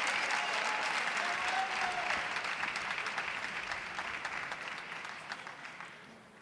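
Audience applauding, a dense patter of hand claps that fades away over the last two seconds or so.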